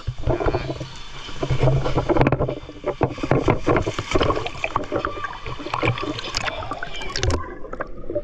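River water splashing and sloshing close by in quick, irregular bursts as people swim and wade.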